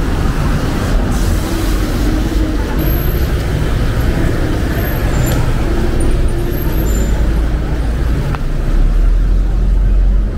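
Road traffic on a rain-wet city street: car engines and tyres on the wet road make a steady rumble. The rumble grows louder near the end.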